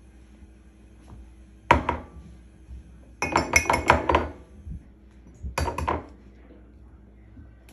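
Clinks and taps against a stainless steel mixing bowl: one sharp clink about two seconds in, a quick run of clinks around the middle, and a shorter run near six seconds.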